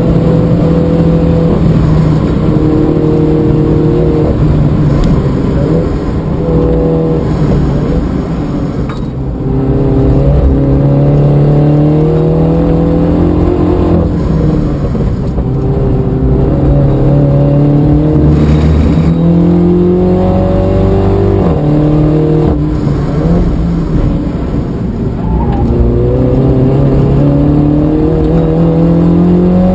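Interior sound of a MINI F56 John Cooper Works' stock 2.0-litre turbocharged four-cylinder engine driven hard at full throttle. The engine note climbs steadily in pitch and drops back at each gear change, with a brief lift-off about nine seconds in.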